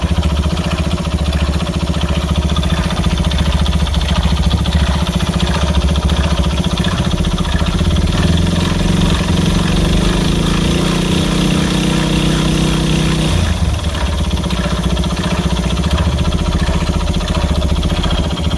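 Honda Ape 50 bored up to 82cc, its single-cylinder four-stroke engine running at a steady idle, revved up and held higher from about 8 to 13 seconds, then dropping back to idle. The engine is making the abnormal noise whose cause turns out to be serious.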